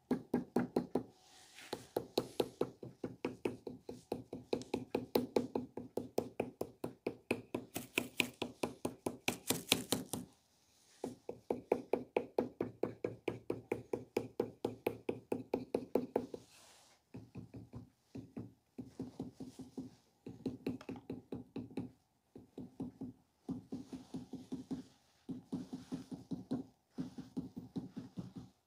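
A wooden modelling tool tapping rapidly against a soft clay sculpture head, about five dull knocks a second, in runs with short pauses between them. It is beating the clay into shape.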